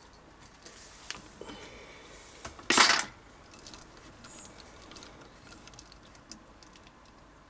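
Steel lathe chuck parts and a chuck key being handled: scattered light metallic clicks and clinks, with one loud, brief metal scrape about three seconds in.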